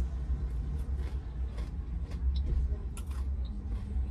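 Chewing and lip-smacking of someone eating a chicken wing, a few sharp wet clicks scattered through, over the steady low rumble of a car engine idling.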